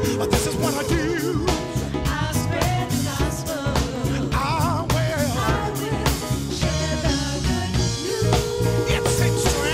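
Live gospel band playing: a lead singer and backing choir sing with vibrato over grand piano, electric guitar and a drum kit keeping a steady beat, with a long held note near the end.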